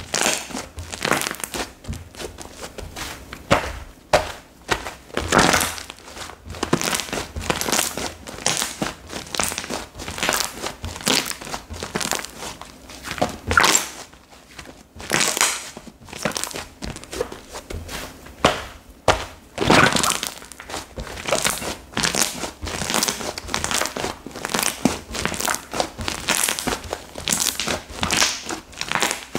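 Slime being squeezed and worked by hand, making an irregular, continuous run of small clicks, pops and snaps.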